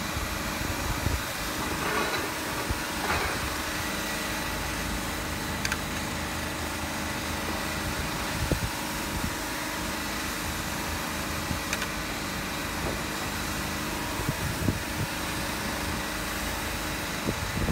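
Polyurethane spray-foam robot rig running steadily: a constant mechanical hum and hiss with a thin steady whine over it.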